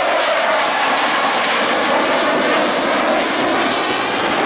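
Blue Angels F/A-18 Super Hornet flying past, its twin jet engines a loud, steady roar with a fast crackle in the high end.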